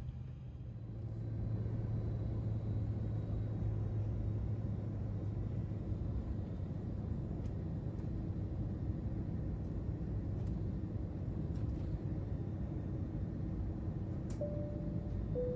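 Steady low rumble of a moving vehicle heard from inside, with a clear two-note falling chime near the end.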